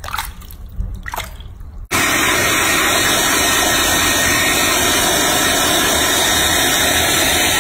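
Water sloshing and splashing lightly as a baby monkey is washed by hand in a sink. About two seconds in, it cuts abruptly to a hair dryer blowing, loud and steady.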